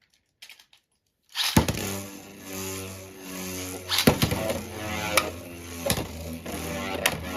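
Library sound effects for a Beyblade spinning-top battle: after near silence, a loud steady whirring spin starts about a second and a half in, cut by several sharp clashing hits, with pitched notes like music over it.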